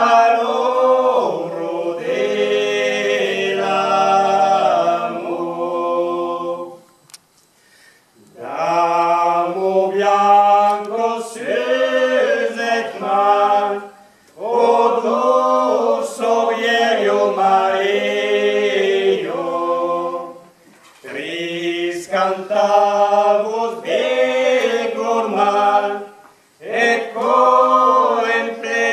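A small mixed group of four voices, one woman and three men, singing a cappella in harmony, in phrases of about six seconds with short breaths between them.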